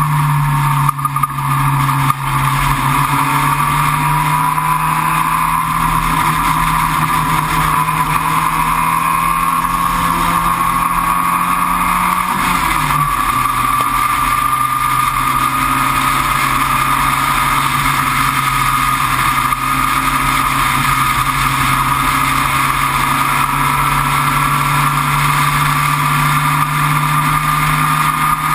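On-board sound of the Entropy sports racer's engine running hard on track, a steady loud drone whose pitch drops once about twelve seconds in and otherwise only drifts slowly.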